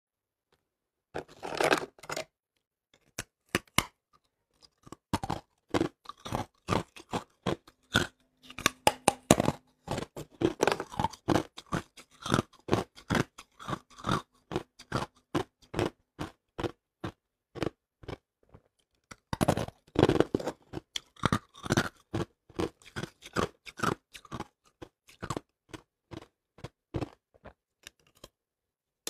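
Hard ice being bitten off and chewed: a long run of sharp cracks and crunches. The crunches are loudest in a cluster about a second in and again around twenty seconds in.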